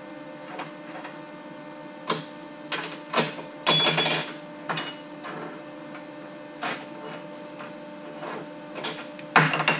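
Small pieces of steel clinking and scraping on a steel worktable, a handful of sharp clanks with the loudest, ringing one about four seconds in. Under them runs the steady hum of the MIG welder's cooling fan.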